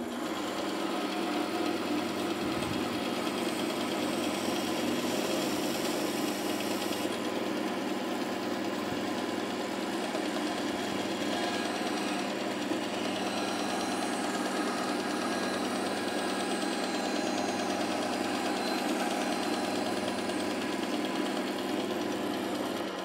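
Bandsaw running steadily, its blade sawing a tapered cut through a small wooden block.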